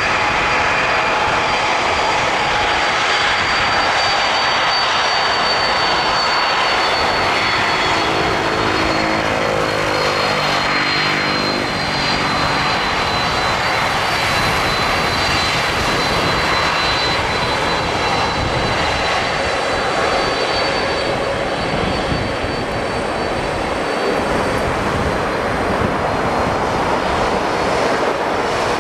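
Twin-engine jet freighter's engines running at taxi power as it rolls past: a steady jet roar with a high whine over it. Its tone sweeps briefly about nine to twelve seconds in as the aircraft passes.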